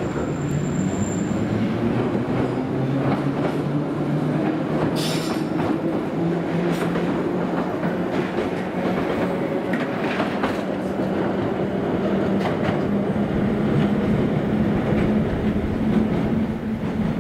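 Island Line Class 483 electric train, a former London Underground 1938-stock unit, running along the platform. Its motors give a steady hum that steps up in pitch, the wheels click over the rail joints, and a brief high wheel squeal comes about five seconds in.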